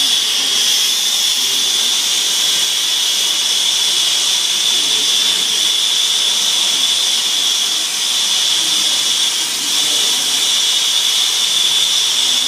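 Steady, loud hiss of a plumber's gas torch flame, used for sweating copper pipe joints.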